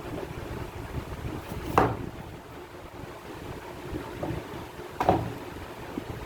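Low rumbling background noise with two short sharp knocks, about three seconds apart.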